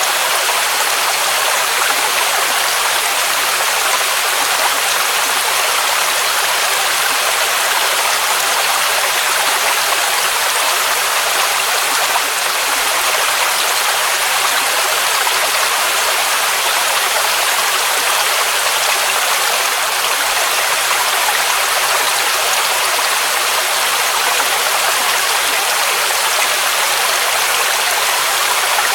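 Waterfall rushing steadily: an even, unbroken hiss of cascading water, strongest in the upper range with little deep rumble.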